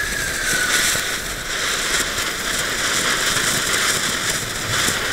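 Funke flower fountain, a ground fountain firework, spraying sparks with a steady hiss and crackling.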